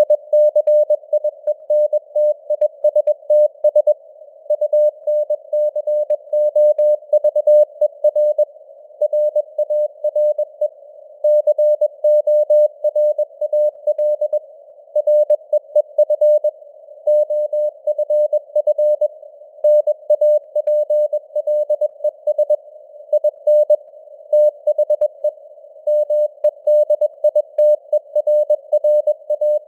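Morse code (CW) at 21 words per minute, spelling out news headlines: a single tone of about 600 Hz keyed on and off in dots and dashes. It sits in a narrow band of simulated radio hiss, and the signal strength fades up and down (QSB).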